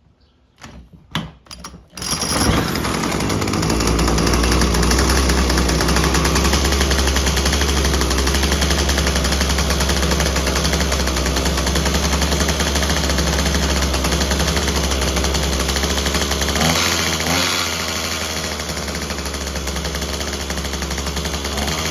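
A few clicks, then the Craftsman WC 210 trimmer's small two-stroke engine fires about two seconds in and runs steadily on choke with a loud, buzzy rattle. Its sound changes shortly before the end and it settles slightly quieter. The owner judges it still needs carburettor tuning.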